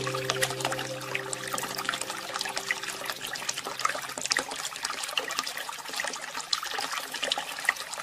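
Water trickling and splashing steadily, full of small drips and splashes. Sustained musical tones fade out underneath during the first half.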